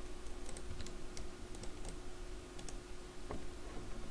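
Scattered, irregular light clicks of computer keys, over a steady faint electrical hum.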